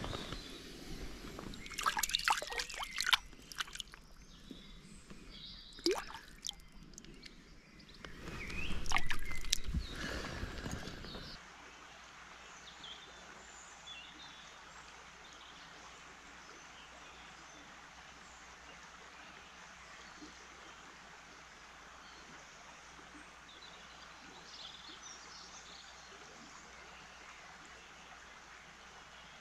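Close-up sloshing and splashing of river water with sharp clicks and knocks from handling fly line and reel. About eleven seconds in it gives way to the steady faint rush of river water with a few faint bird chirps.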